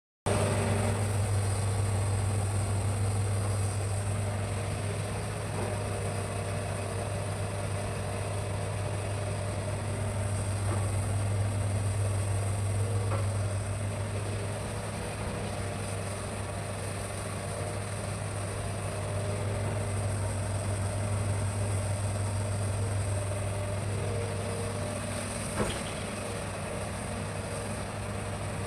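Hitachi hydraulic excavator's diesel engine running steadily with a deep, even drone, and one sharp knock near the end.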